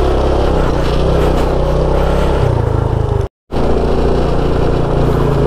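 A small motorbike engine runs steadily while riding. The sound cuts out completely for a split second a little over three seconds in, then resumes.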